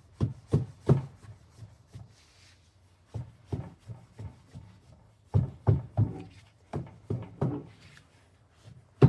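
Dull thumps of moulding sand being rammed into a deep cope flask, coming in runs of about three a second with short pauses between.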